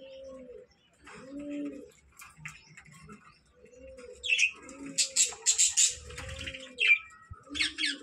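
Budgerigars chirping and chattering, with a dense run of high chirps over the second half. Under it a low two-note cooing call repeats about once a second.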